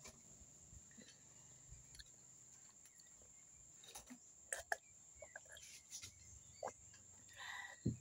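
Faint, steady high-pitched insect drone, with a few soft clicks around the middle and a short knock near the end.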